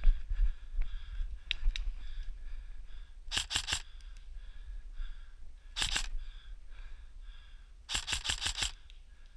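Airsoft rifle firing three short bursts of rapid clicking shots: one about a third of the way in, a shorter one just past halfway, and the longest near the end. Between them come low bumps and rustle from the player moving.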